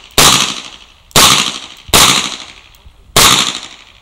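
Four .38 Special shots from a Chiappa Rhino revolver, sharp cracks spaced roughly a second apart at slightly uneven intervals, each trailing off in a short echo.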